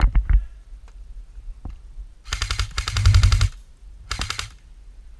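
Airsoft electric gun firing on full auto: a burst of rapid clicking shots lasting about a second, then a short second burst. A couple of sharp knocks come just before.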